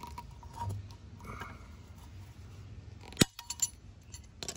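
Diagonal cutters snipping through a plastic zip tie on a fire extinguisher cylinder: faint handling, then one sharp snap about three seconds in, followed by a couple of light clicks.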